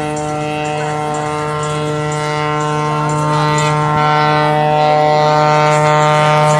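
A steady, even engine drone with a strong low hum and many overtones, typical of an aircraft engine running at constant power. It grows a little louder about four seconds in.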